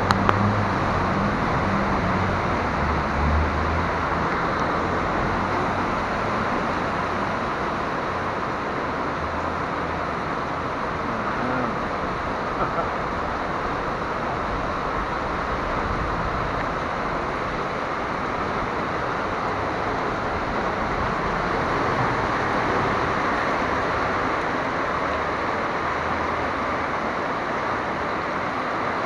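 Heavy rain pouring down, a steady unbroken hiss. In the first few seconds a car drives through the flooded street, adding a low engine rumble and the spray of water.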